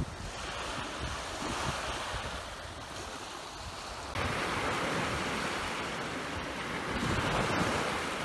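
Sea waves washing onto the beach, with wind buffeting the microphone. The surf gets suddenly louder about halfway through.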